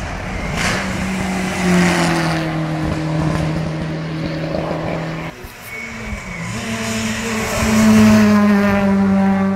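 Rally cars passing at speed on a closed stage, engines held at high revs. After an abrupt cut, a Suzuki Swift rally car accelerates past, its engine note rising and loudest about eight seconds in.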